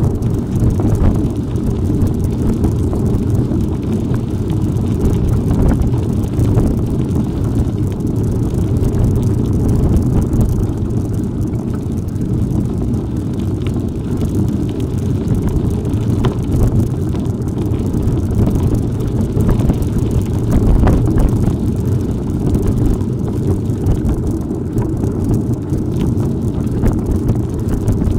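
Wind buffeting the microphone over the steady rumble of a bicycle riding on a rough off-road track, with a few faint knocks and rattles.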